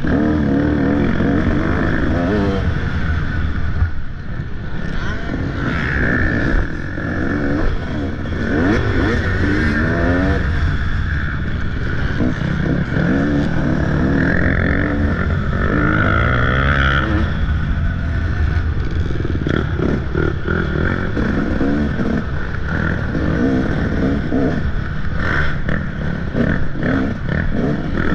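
Motocross dirt bike engine being ridden hard, revving up and falling back again and again. Short knocks and rattles come through, more of them in the second half.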